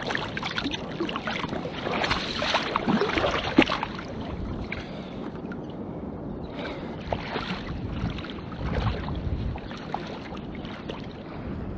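Shallow seawater splashing and sloshing as a striped bass is released back into the water. The splashing is busiest in the first few seconds and then settles into lighter sloshing.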